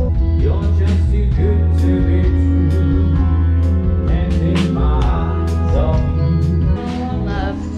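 Live stage show music: singers performing over a band track with a heavy bass line and a steady drum beat, loud.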